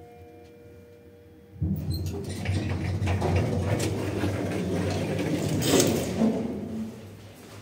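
Passenger lift's automatic car and landing doors opening: a click about one and a half seconds in, then the door operator runs with a low hum as the steel panels slide apart noisily, easing off near the end.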